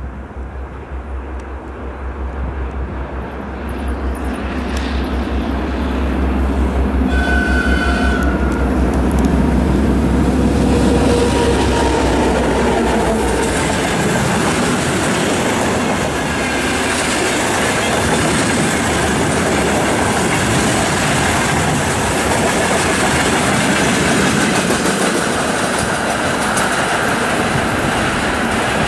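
2M62U twin-section diesel locomotive approaching and passing, its two-stroke V12 diesels giving a deep throb that grows louder and then falls away as the locomotive goes by, with a short horn toot about seven seconds in. After it, loaded tank wagons roll past with steady wheel noise and clickety-clack over the rail joints.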